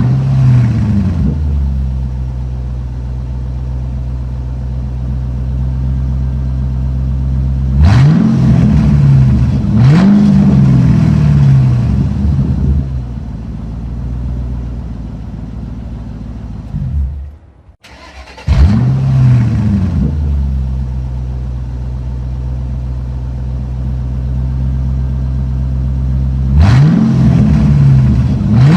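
Ford Mustang engine starting with a flare of revs and settling into a steady idle, then blipped twice, about eight and ten seconds in. It shuts off about halfway through and is started again, catching with another flare, idling, and revving once more near the end.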